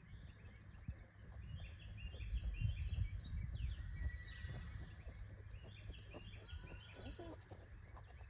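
Birds calling in short repeated series of high chirping notes, over a low rumble of wind on the microphone that swells around two to three seconds in.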